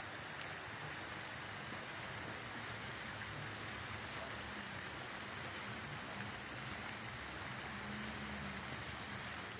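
Fountain jets splashing into a basin: a steady rush of falling water.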